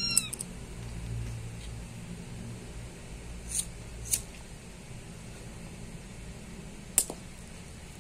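A kitten gives one short high mew right at the start, rising then falling in pitch. A few sharp clicks follow, the loudest about seven seconds in, over a low steady hum.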